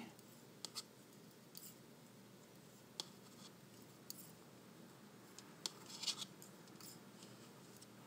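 Knitting needles, faint and scattered: light clicks and scrapes as stitches are knitted.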